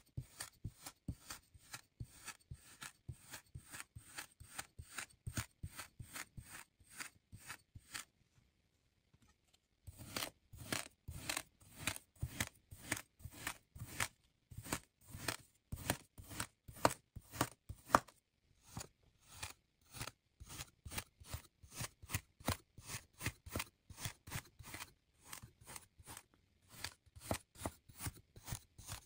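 Metal cutters and a kitchen knife pressing and slicing through kinetic sand: a long run of short crisp crunching cuts, about three a second, with a pause of about two seconds a third of the way in.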